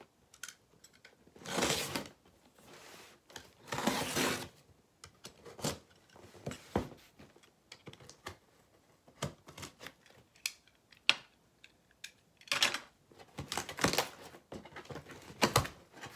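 A cardboard shipping box being cut open with a blade: two longer slicing strokes near the start, then scattered clicks, taps and scrapes of cardboard being handled, busiest near the end.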